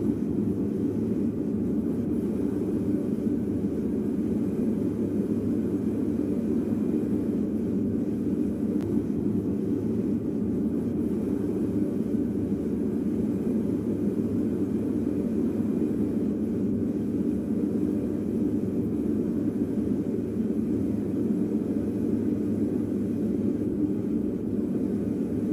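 Gas burner of a small metal-melting furnace running with a steady, even rushing noise while bronze melts in its crucible.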